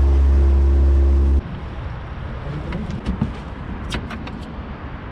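A boat's motor running steadily under way, a loud low hum that stops abruptly about a second and a half in. After that comes a quieter, even background with a few light clicks.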